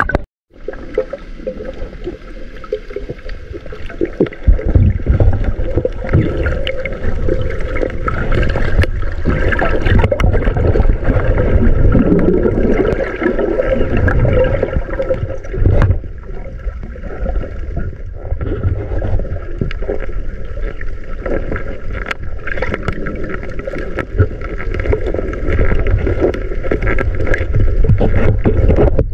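Sea water heard through a submerged camera: a muffled low rumble of moving water with a steady hum, cut out for a moment just as the camera goes under, with a few scattered knocks.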